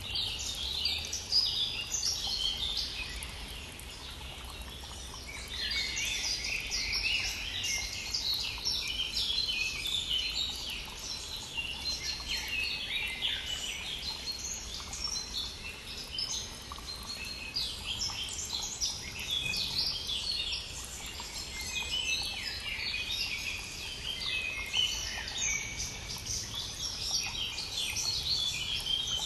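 Dense spring chorus of many songbirds singing at once, rapid overlapping chirps and trills, over the steady rush of a brook. The birdsong thins for a moment about four seconds in, then picks up again.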